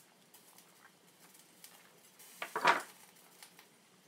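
Quiet handling of soft steamed cabbage leaves, then a short clatter of a few knocks a little past halfway as a small kitchen knife is set down on the table.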